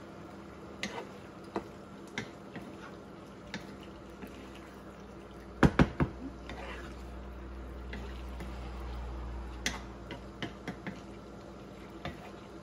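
Chicken livers bubbling in their sauce in a frying pan while a wooden spatula stirs them, with scattered light knocks of the spatula on the pan and a cluster of louder knocks about six seconds in.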